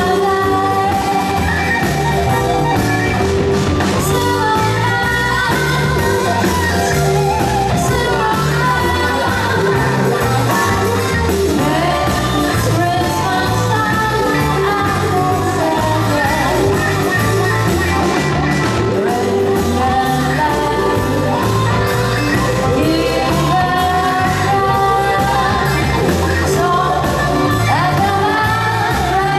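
Live jazz band playing a Christmas song with singing. A bass line steps from note to note underneath throughout.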